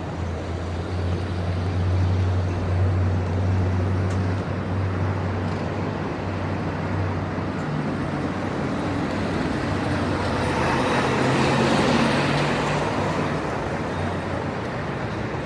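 Light city traffic ambience with a distant rumble. A low engine hum runs through the first half, then a vehicle passes, loudest about twelve seconds in.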